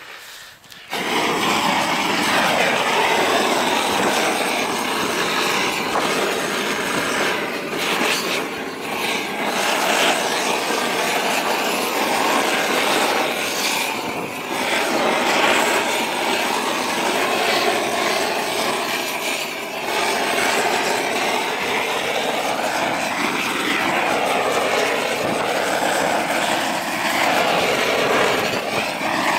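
Gas roofing torch burning steadily as it heats torch-on bitumen felt. It comes on about a second in, with slow swells in tone near the end.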